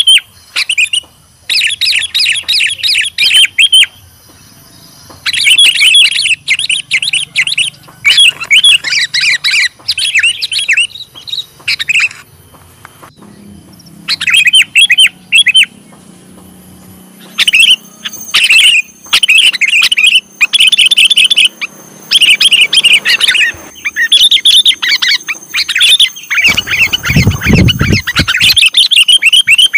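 Sooty-headed bulbul (kutilang) calling in repeated bursts of rapid, chattering chirps, a second or two each with short pauses between: the call bird trappers seek as a lure. A brief low rumble comes in near the end.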